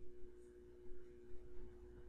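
A faint, steady electrical hum at one pitch, over a low rumble with a few soft swells in loudness.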